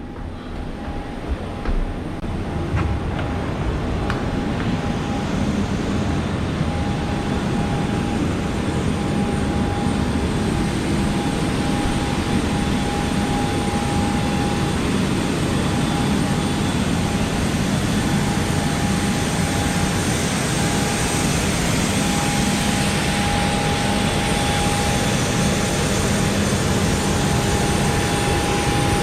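Steady mechanical drone with a constant whine, the sound of airliner and airport machinery heard while boarding a parked Boeing 737. It swells over the first couple of seconds, then holds level.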